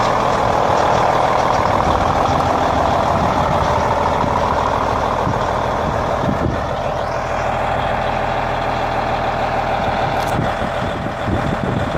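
Cummins N14 inline-six diesel in a 1998 Kenworth C500 bed truck running steadily just after its first start, sounding real strong.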